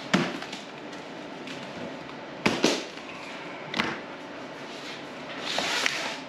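Box and packaging being handled during an unboxing: a sharp knock, a quick pair of knocks and another knock a second later, then a rustle of about a second near the end.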